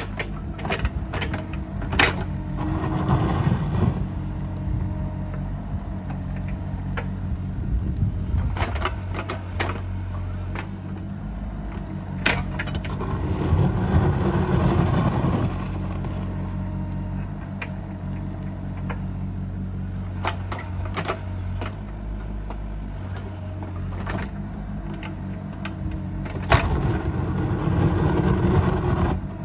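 Bobcat E37 compact excavator's diesel engine running steadily, surging three times as it labours under hydraulic load, with scattered sharp metallic clanks.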